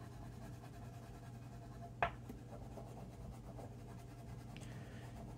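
Oil pastel rubbing faintly across paper as a drawing is coloured in, with a single sharp click about two seconds in.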